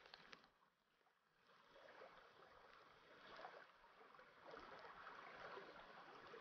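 Near silence, with the faint, even rush of river water flowing, growing slightly from about two seconds in.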